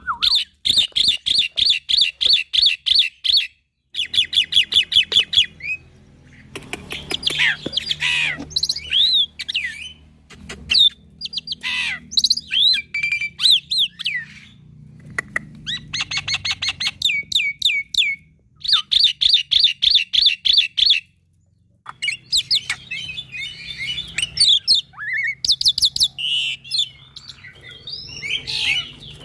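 Young black-winged myna (jalak putih) singing a varied song: fast trains of rapidly repeated chattering notes alternate with gliding whistles and harsh squawks, pausing briefly twice.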